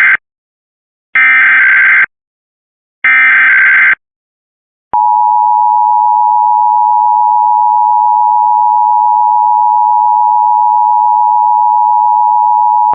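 Emergency Alert System warning header: the end of one and then two more bursts of screeching SAME data tones, about a second each with a second between them, then after a short pause a single steady attention tone held for about eight seconds, the signal that a warning message follows.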